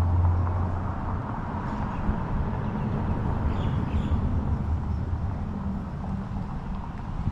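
Street traffic noise: a motor vehicle's engine running nearby, its low hum fading about half a second in, leaving a steady low rumble.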